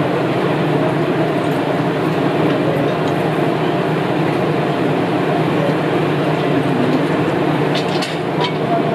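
Diesel railcar engines idling steadily at close range. A few light clicks come near the end.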